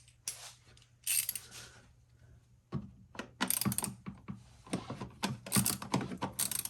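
Hand socket wrench ratchet clicking in short irregular runs, with small metal clinks of the socket and extension, as a fastener on the fuel rail is worked at.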